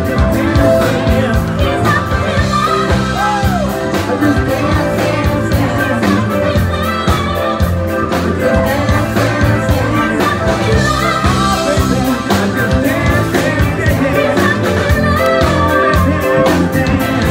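A live rock band playing a song, with a singer's voice over guitar and a steady drum beat.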